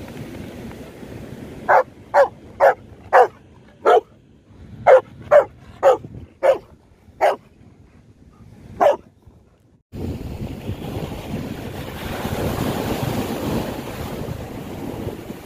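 A dog barking, about eleven single barks spaced irregularly over some seven seconds. About ten seconds in, the barking gives way to surf breaking on the shore, with wind on the microphone.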